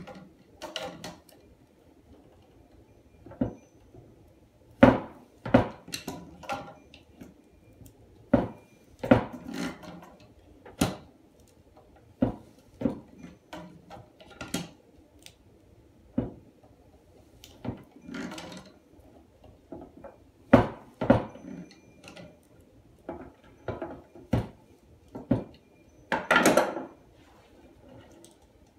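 Slip-joint pliers working the nut under a porcelain toilet tank: irregular clicks, knocks and short scrapes of the tool, the tank and the wooden table as the part underneath is tightened. Near the end a longer scraping shuffle as the tank is shifted.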